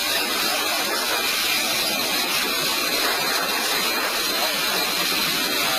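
Jet airliner's engines running as it moves along the runway: a steady rushing hiss with a faint high whine.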